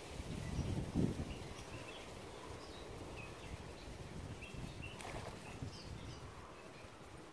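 Outdoor wind rumble on the microphone, strongest about a second in, with scattered faint bird chirps.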